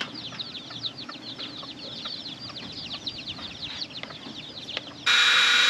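Chicks peeping, a dense run of short falling chirps. About five seconds in, a power drill starts up suddenly and much louder with a steady whine, drilling the hole for the fan through the coop wall.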